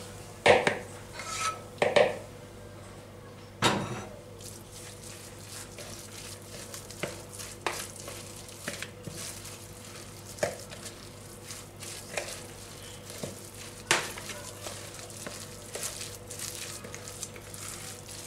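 A wooden spoon knocking and scraping against a metal pan as a fried onion and tomato-paste mixture is emptied into a plastic bowl, three sharp clacks in the first four seconds. Then softer, scattered clicks and rustling as a hand mixes grated boiled potato filling in the plastic bowl, over a faint steady hum.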